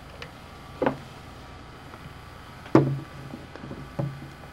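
Three dull knocks, the loudest near the middle, as a handheld phone is picked up and handled against the desk.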